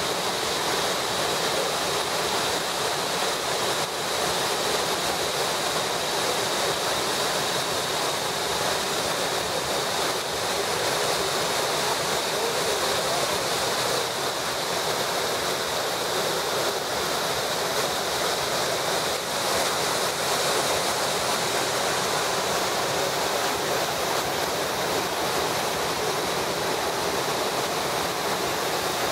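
Thusfall waterfall on the Eger rushing steadily at full flow, a muddy torrent released through the weir's opened sluice, mixed with the rushing rapids of the swollen river below.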